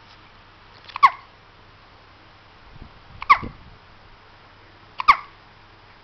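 A two-week-old newborn hiccuping loudly, three times about two seconds apart. Each hiccup is a sudden catch with a brief high squeak that drops in pitch.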